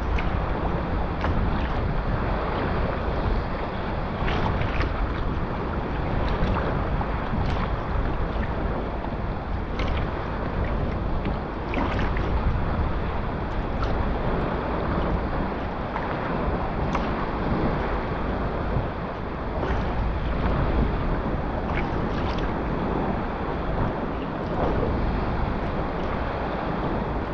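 Wind buffeting the microphone over water rushing and slapping around a Stellar S18 G2 sea kayak under way in a moderate breeze, with a sharp splash every few seconds.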